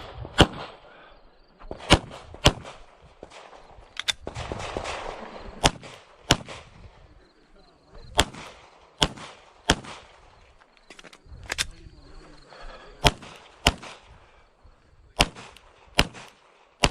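9mm Glock 34 pistol firing a stage string: about a dozen sharp shots, mostly in pairs roughly half a second apart, with pauses of one to three seconds between pairs as the shooter moves between targets.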